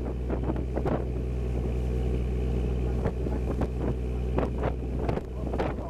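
A sightseeing boat's engine running steadily under way, a low even hum, with wind on the microphone and short irregular knocks scattered through it.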